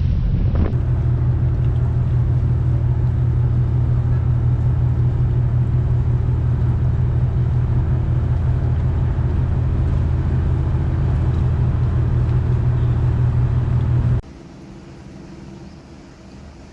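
Steady, loud, low engine rumble of a moving vehicle, which stops abruptly near the end and leaves a quieter background hum.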